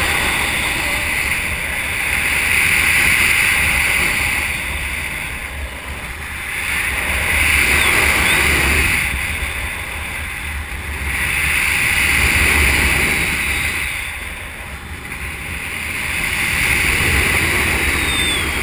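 Wind rushing over a paraglider pilot's action-camera microphone in flight, a steady buffeting rumble that swells and fades about every four to five seconds.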